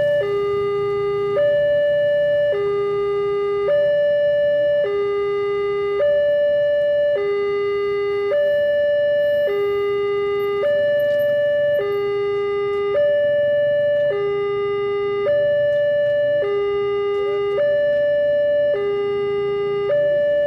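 Railway level-crossing alarm sounding a two-tone warning, a higher and a lower tone alternating evenly, each held a little over a second, to signal that a train is coming.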